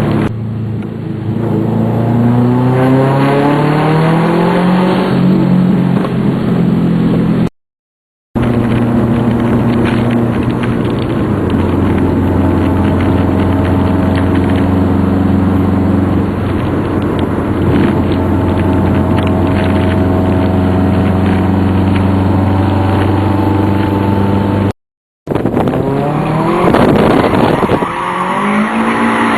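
A 2004 Subaru STI's turbocharged 2.5-litre flat-four runs loud through a 3.5-inch exhaust. Its revs climb for the first several seconds, then hold at a steady engine speed for a long stretch, broken by two brief drops to total silence. Near the end the revs swing up and down over a hiss of tyre noise.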